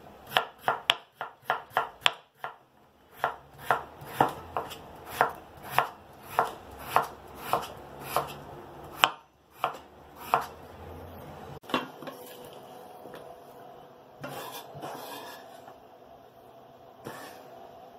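Kitchen knife slicing raw potato into thin rounds on a bamboo cutting board, the blade knocking on the board about three times a second. After about ten seconds the strokes grow fewer and fainter.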